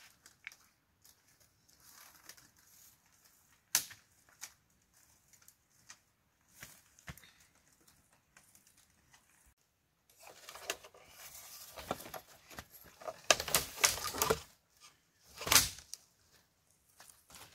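Scattered light clicks and a sharper knock, then a few seconds of dense rustling and scraping mixed with clicks, and one short rustle near the end.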